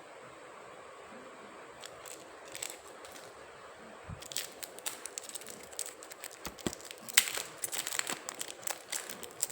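Coin packaging crinkling and crackling as it is handled and opened, in a run of sharp crackles that starts a few seconds in and grows louder toward the end.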